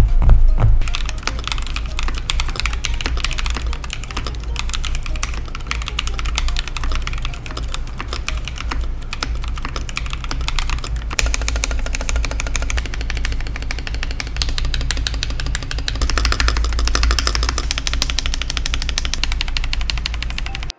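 Mechanical keyboard fitted with Akko CS switches being typed on quickly and continuously, a dense stream of key clicks and clacks. Background music plays underneath.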